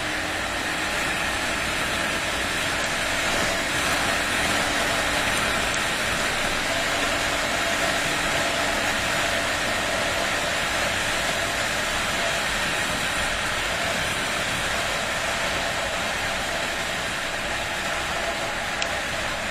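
Honda XR250 single-cylinder four-stroke dirt bike cruising at a steady speed, its engine running under wind rush on the camera microphone. The sound stays steady throughout.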